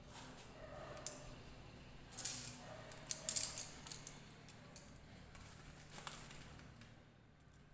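Brief scratchy rustles and a few sharp clicks, loudest a little past the middle.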